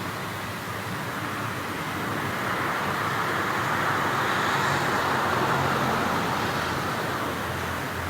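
Street traffic ambience: a steady wash of road noise in which a vehicle passes, growing louder toward the middle and easing off again near the end.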